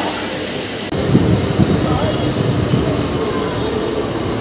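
Electric local train running alongside a station platform: a steady rumble and rattle of the coaches and wheels on the rails, growing louder about a second in.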